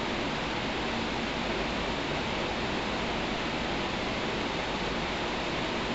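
Steady, even hiss of the recording's background noise, with no speech.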